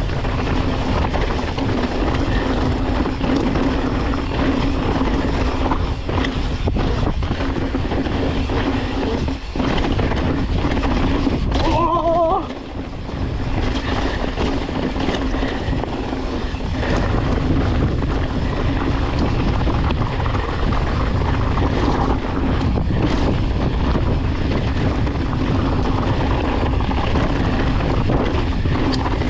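Wind rushing over the microphone and mountain-bike tyres rolling and rattling over a rough trail on a fast descent, with a steady low drone.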